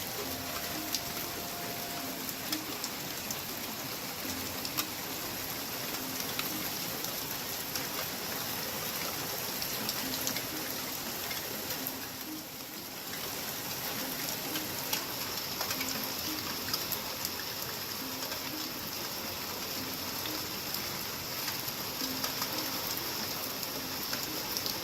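Heavy rain falling steadily, with many sharp individual drips and drops ticking through the steady hiss.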